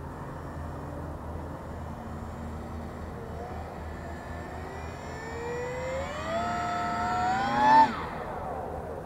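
A radio-controlled model airplane's motor and propeller whine, rising steadily in pitch and growing louder as it flies in, then passing close by just before the end with a sharp drop in pitch as it goes away.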